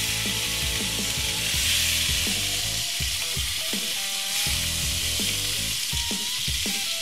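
Barramundi fillets and asparagus sizzling steadily on a hot grill plate as butter sauce is brushed onto the fish.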